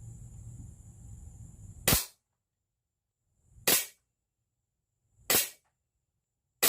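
Four sharp shots from a Strike Industries ARK17 air pistol, spaced about one and a half seconds apart, with a low steady hum under the first two seconds.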